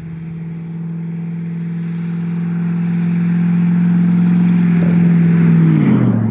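Straight-piped 2001 Jaguar XJ8 3.2-litre V8, its exhaust cut off just after the manifold, driving past at steady throttle. The engine note grows steadily louder as the car approaches, then drops in pitch as it goes by near the end.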